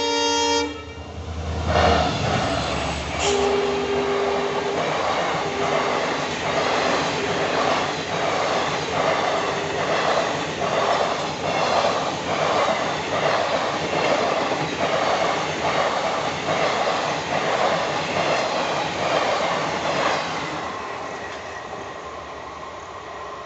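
A diesel passenger train passing at speed. The locomotive's horn cuts off about half a second in, and the locomotive rumbles past. Then a long rake of coaches rattles by with the wheels clattering over rail joints in a steady rhythm, about once a second, fading away near the end.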